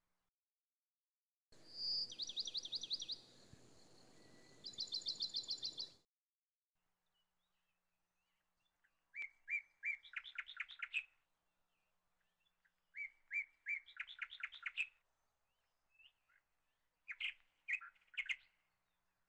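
Small birds chirping and trilling: two fast trills in the first few seconds, then three bursts of rapid repeated chirps with quiet gaps between them.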